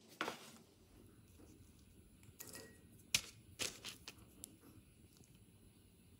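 A metal baking tray set down on a wooden board with a knock, followed by a few light clicks and taps from handling.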